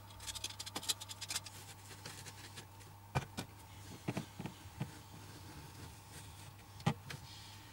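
Faint scratching and light clicks of a utility knife and a foam gun's metal nozzle working soft expanding foam against the plastic freezer liner. A quick run of small ticks comes in the first second and a half, then single sharper clicks every second or so, the sharpest near the end.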